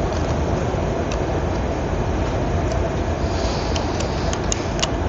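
Steady low background rumble, with a few light sharp clicks near the end.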